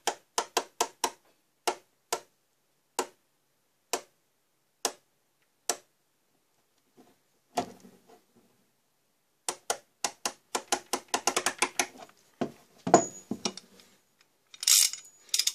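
3/4-inch-drive ratchet wrenches being worked by hand, their pawls clicking over the teeth: a string of separate sharp clicks that slow down over the first six seconds, then, after a knock, a fast run of fine clicks. Handling knocks and rustle near the end.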